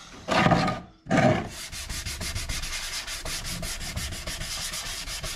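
Sandpaper on a sanding block rubbing down the old clear-coated paint of a motorcycle part by hand. There are two long strokes about half a second and a second in, then quick, short back-and-forth strokes, several a second.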